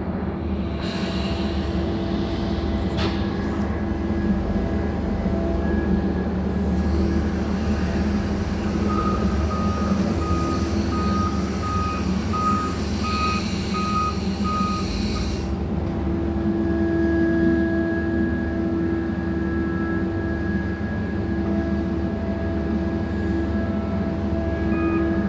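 Steady machinery drone of a Mantsinen 95 port material handler slewing its clamshell grab, with a warning beeper pulsing about twice a second for several seconds in the middle and again near the end.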